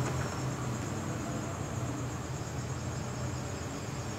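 Steady background noise: a low hum under a faint, even high-pitched trill, with no tool clinks.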